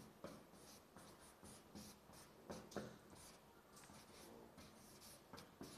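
Faint scratching of chalk writing on a blackboard, in short scattered strokes, loudest about two and a half seconds in.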